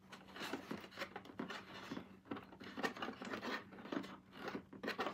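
Light scratching, rustling and irregular clicking of a toy coffee shop set's plastic pieces and packaging being handled.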